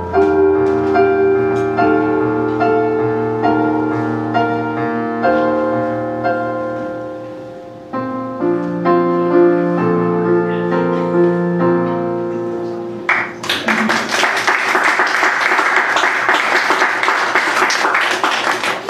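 Electronic keyboard playing slow, sustained piano chords that ring and fade. About two-thirds of the way through, the small audience starts applauding, and the clapping is louder than the piano.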